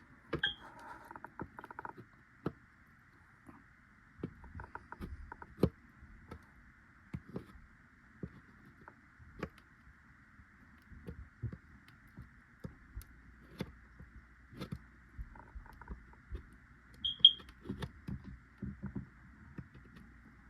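Scattered light taps, clicks and scrapes of a hot tool working over a 3D-printed plastic part, over a faint steady high-pitched hum.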